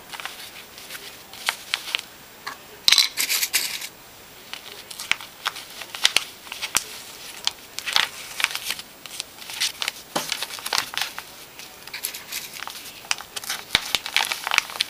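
Paper pattern rustling and crinkling as it is folded and handled on the knit sweater, in short irregular bursts with a few light clicks.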